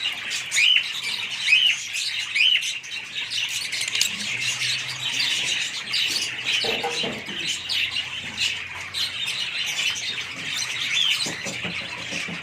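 A flock of Fischer's lovebirds chattering: many short, high chirps and squawks overlapping without a break.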